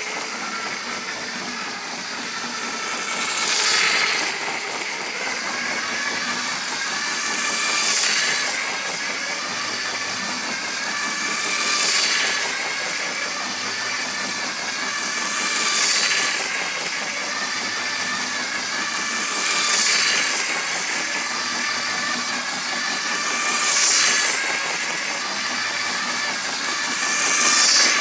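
LEGO 9 Volt Metroliner train (set 10001) running laps on plastic track: a steady whir of its electric motor and wheels that swells each time it passes close by, about every four seconds.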